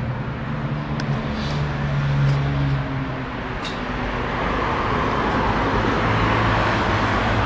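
Street traffic: a vehicle engine running close by, its low hum swelling about two seconds in and again through the second half, with a few light clicks.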